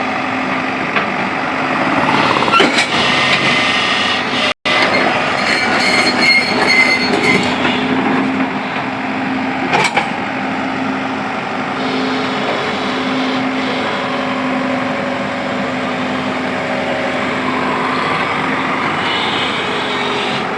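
Excavator's diesel engine running with a steady drone, with clattering and scraping through the first half and a sharp click about ten seconds in.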